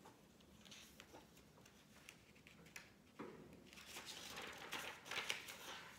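Faint rustling of paper book pages being turned, a run of soft rustles beginning about three seconds in.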